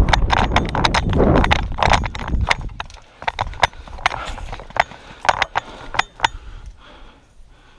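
Airsoft guns firing in a skirmish: an irregular run of sharp clicks and cracks, with low rumbling handling noise over the first couple of seconds. The shots thin out towards the end.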